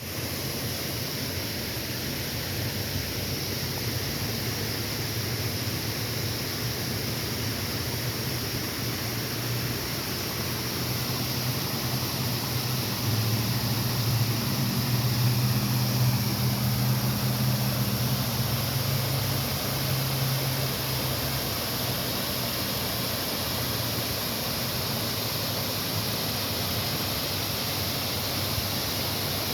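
Waterfall rushing in a steady, even wash of noise. A low rumble swells in the middle and fades again.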